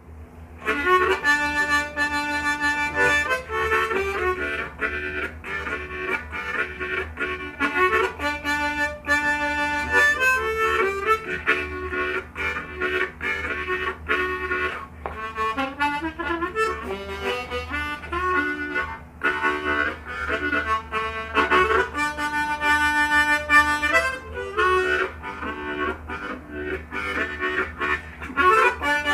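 Diatonic blues harmonica in G playing a train imitation: rhythmic chugging chords broken by held notes, starting about a second in. A steady low hum lies underneath.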